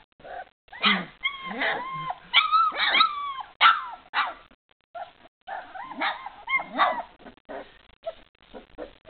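Springer spaniel puppies yipping and whining in short, high-pitched calls that bend in pitch, coming in clusters with a brief pause about halfway through.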